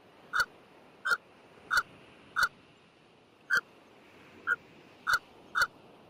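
Pelican calling: a series of short, alike calls, about eight of them, roughly two-thirds of a second apart, over a faint steady hiss.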